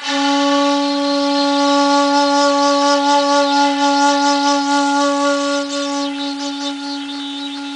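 A 1.9 shakuhachi (bamboo end-blown flute) sounding one long held note that begins sharply and stays on a single pitch, getting a little softer in its second half.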